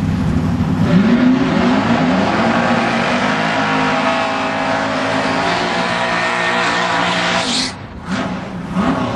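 Drag racing car engine at high revs with tyres spinning, the pitch climbing over the first couple of seconds and then held high, typical of a burnout. Near the end it climbs sharply and cuts off, followed by a few short blips of the throttle.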